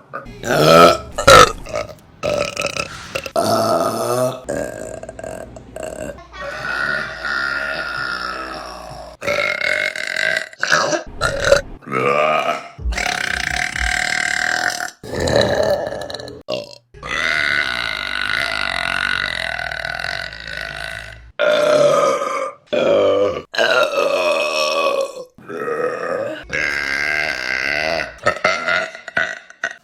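Women burping, one burp after another with abrupt cuts between them. A few quick burps come near the start, then several long, drawn-out burps of two to four seconds each.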